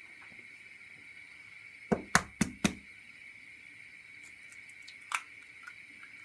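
A raw egg knocked four times in quick succession against a hard edge to crack its shell, about two seconds in, then a single lighter click near the end.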